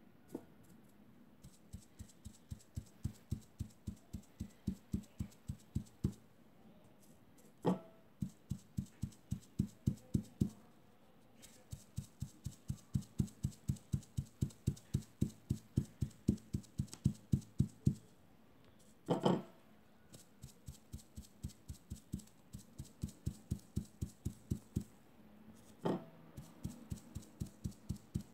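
Sponge dabbing fabric paint through a stencil onto cloth: soft, rapid taps, about three or four a second, in runs with short pauses. A louder knock breaks in three times.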